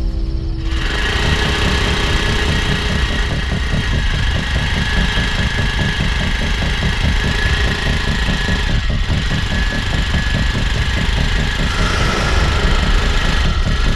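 Motorcycle engine running steadily with a rapid low throbbing beat.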